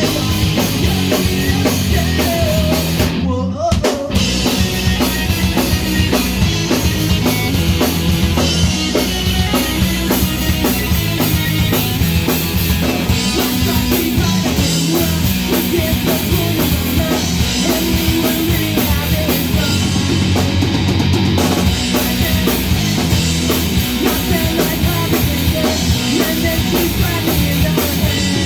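Punk rock band playing an instrumental passage, driven by a drum kit. The band cuts out for a moment about three and a half seconds in.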